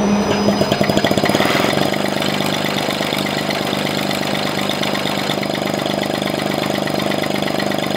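LiquidPiston see-through rotary engine running on propane, with a fast, even stream of firing pulses. It is a little louder in the first second or two.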